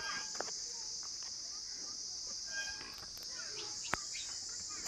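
Steady high-pitched drone of crickets, with faint scattered bird chirps and one sharp click about four seconds in.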